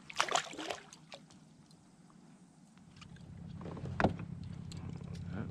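A short splash of water as a bass is let go over the side, then, from about three seconds in, the steady low whir of a Native Watercraft Slayer Propel kayak's pedal drive as the kayak is pedalled forward, with a single knock about four seconds in.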